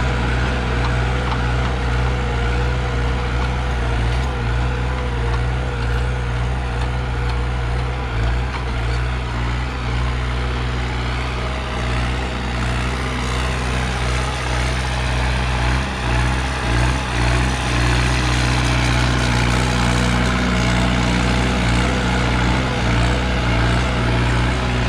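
New Holland 5630 tractor's diesel engine running steadily under load while pulling a disc harrow through tilled soil.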